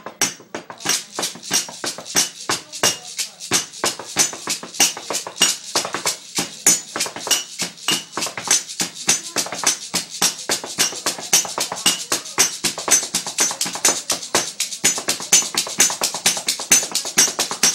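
Improvised table-top percussion: a metal spoon and hands tapping on mugs, glassware and the table, making a fast, steady beat of sharp clinks and taps at about four to five a second.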